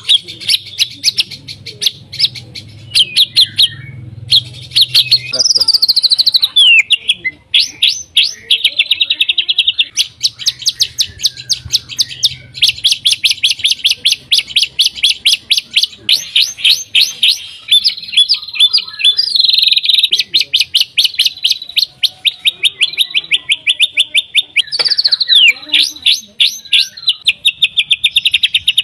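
White-rumped shama (murai batu) singing: long runs of rapid, rattling repeated notes (kretekan), broken by a sharp falling whistle about five seconds in and again near the end.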